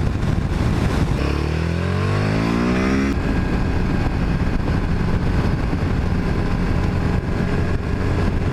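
Motorcycle engine under way: the revs rise for about two seconds, then it settles into a steady run.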